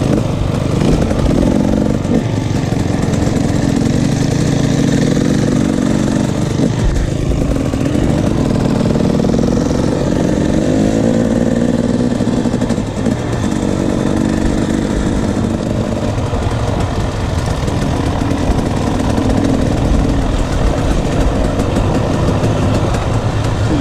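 KTM 300 two-stroke dirt bike engine running under way, its pitch rising and falling with the throttle, heard from on the bike itself.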